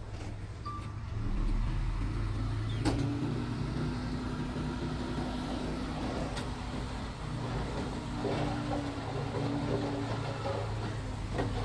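Mitsubishi bulldozer's diesel engine running steadily and getting louder about a second in as it works, with a steady whine over it and a few sharp metallic clanks.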